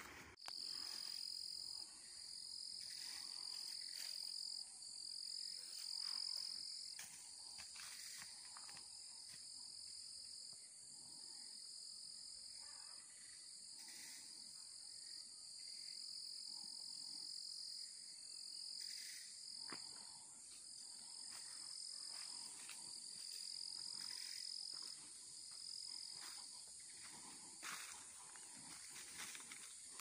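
Faint tropical forest ambience: a steady, high-pitched shrill chorus of calling animals that tapers off about 26 seconds in, with a few soft clicks and rustles.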